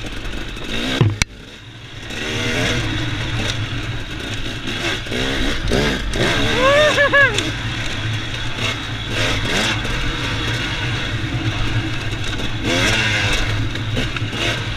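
2017 Husqvarna TX 300's two-stroke single-cylinder engine revving up and down under a trail rider's throttle, with several rising and falling revs. There is a sharp clack about a second in, where the engine note drops off suddenly, then builds back up.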